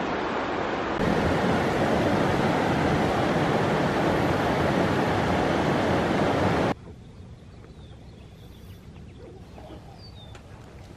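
River water rushing over a rocky riffle, a steady rush that grows louder about a second in. It cuts off abruptly about two-thirds of the way through, leaving a much quieter outdoor background with a few faint high chirps.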